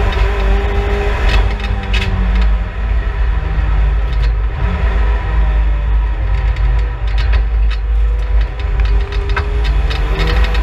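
Vauxhall Astra GSi race car's turbocharged engine heard from inside the cabin on track, its note rising and falling as the car is driven. A heavy low rumble of wind and road noise runs under it, with a few short knocks and rattles.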